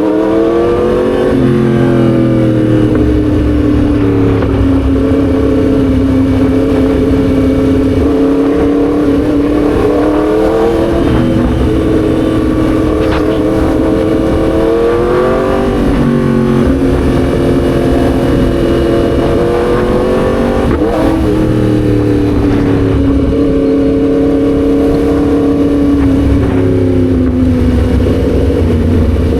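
Yamaha MT-10 SP's crossplane inline-four engine running under way, its pitch climbing and dropping several times as the throttle is opened and closed through the gears.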